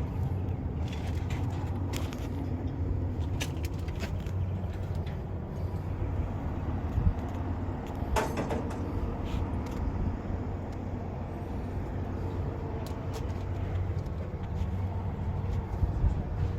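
Steady low engine hum, like a vehicle idling, with a few light clicks and a louder knock about eight seconds in.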